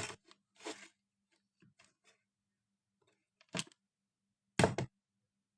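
Short clicks and rustles of hands handling the power supply's wiring. The louder ones come about three and a half seconds in and again about a second later.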